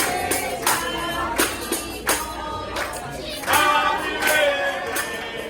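Music with singing over a steady beat of sharp percussion hits.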